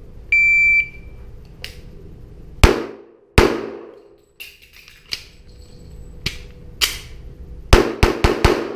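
An electronic shot timer beeps once, then a semi-automatic pistol is fired in an indoor range. Two shots come about three-quarters of a second apart, then a few spaced shots, then a quick string of four near the end, each ringing briefly off the walls.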